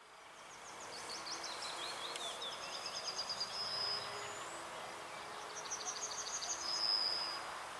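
Songbirds singing in two bursts of high, quick trills and falling notes, each ending in a held whistle, over a steady outdoor background hiss. The sound fades in during the first second.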